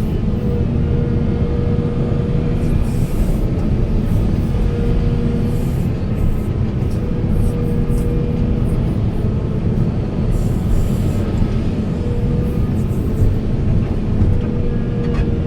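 Large hydraulic excavator's diesel engine running steadily under load, with a high whine that comes and goes every second or two.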